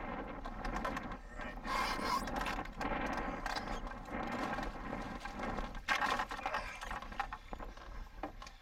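Scraping and knocking handling noises, with a few sharp clicks.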